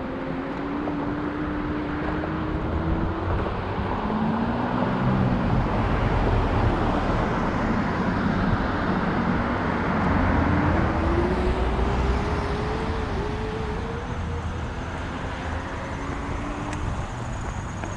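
Road traffic passing on a busy street, with engine and tyre tones rising and falling as cars go by, heard from a moving hover scooter. A steady low rumble from the scooter's wheels on a bumpy sidewalk runs underneath.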